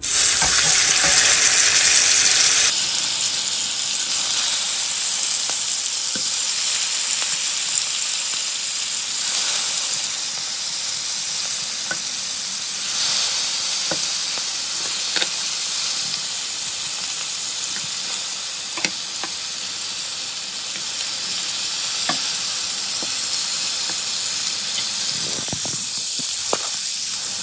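Marinated rohu fish steaks sizzling as they shallow-fry in hot oil in a nonstick pan, with scattered spits and pops. The sizzle is loudest in the first few seconds as the fish goes into the oil, then settles to a steady fry.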